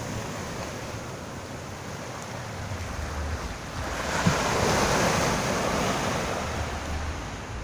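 Surf washing onto the beach, with wind buffeting the microphone. A wave swells to its loudest about four seconds in and then eases off.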